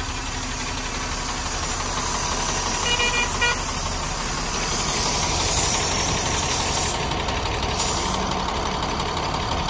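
Truck engine running steadily with road traffic noise around it. A vehicle horn gives two short toots about three seconds in.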